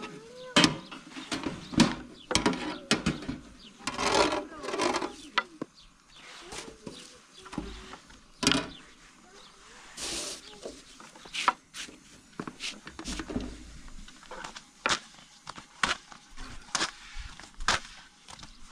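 Thin wooden rolling pins knocking and clicking against low wooden boards as dough is rolled out very thin, in irregular sharp taps.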